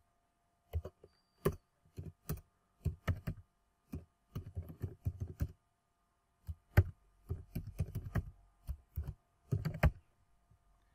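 Computer keyboard being typed on in irregular runs of keystrokes, with a brief pause about halfway through, stopping just before the end.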